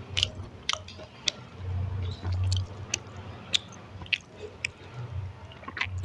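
Close-miked chewing of food, with a scatter of sharp, wet mouth clicks and smacks.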